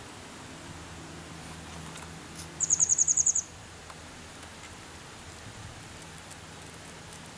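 A small bird's rapid, high trill of about ten quick notes in under a second, over a faint, steady outdoor hiss.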